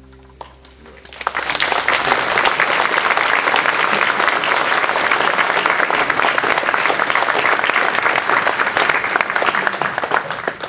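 The last notes of an acoustic guitar ring out and fade. About a second in, an audience starts applauding loudly and keeps going, and the clapping dies away near the end.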